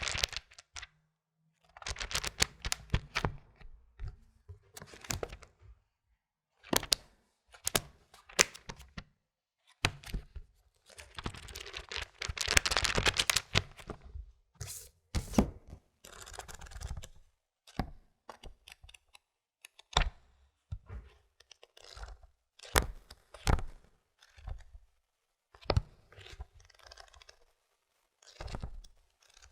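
Paper pages of a book being turned and handled, each turn a short crisp rustle with pauses between, and a longer run of rapid page flipping around the middle.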